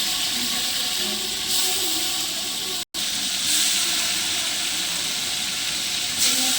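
Food sizzling as it fries in hot oil in a pan, a steady hiss broken by a brief moment of silence about three seconds in.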